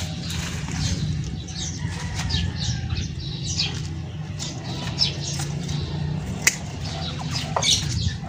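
Dry bean vines and leaves rustling and scraping as they are pulled and cut down from a bamboo trellis, with a couple of sharp clicks a little past the middle. A steady low rumble runs underneath.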